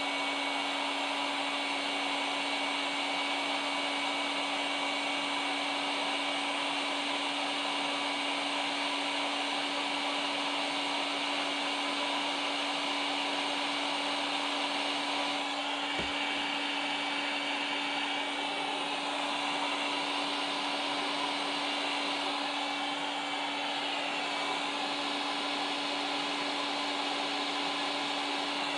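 Hot-air blower running steadily, a constant whoosh with a steady hum, heating the scooter's gearbox case to free a pressed-in bearing.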